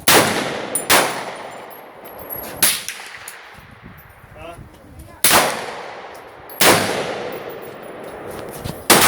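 AR-15 rifle firing 5.56 rounds in slow, single aimed shots. Six sharp cracks come at uneven gaps of about one to two and a half seconds, each trailing off in a brief echo.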